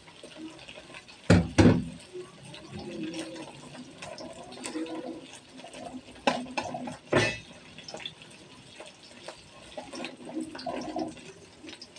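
Raw shrimp frying in a little oil in a steel wok, sizzling as a plastic spatula turns them. Loud knocks against the pan stand out, two about a second and a half in and two more around six to seven seconds.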